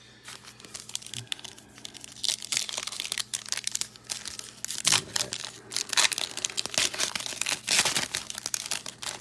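Foil wrapper of a 2021 Illusions football card pack being torn open and crinkled by hand: a dense run of sharp crackles and rips that grows louder about halfway through.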